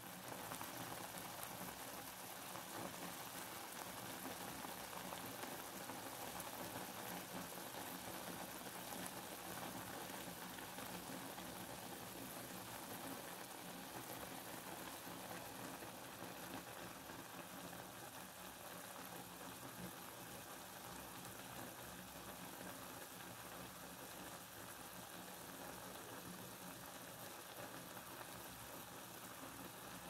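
Steady hiss of falling rain, an even wash of noise with no single drops standing out.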